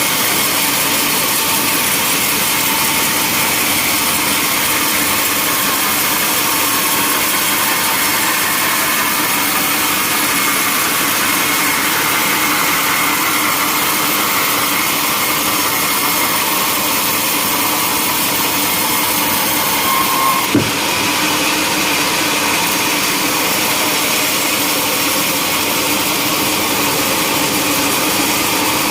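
Sawmill saw running steadily through a log, a loud continuous noise with faint steady tones, and a single short knock about twenty seconds in.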